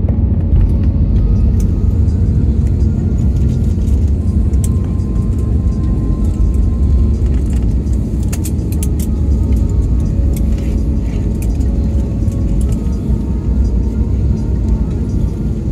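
Airliner cabin noise during the landing roll: a loud, steady low rumble of the engines and the wheels on the runway. A cluster of short rattling clicks from the cabin comes about halfway through.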